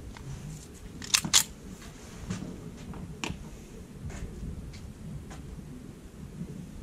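Sharp metallic clicks of a .45 semi-automatic pistol being handled and readied: two close together about a second in, another about two seconds later, then a few fainter ones.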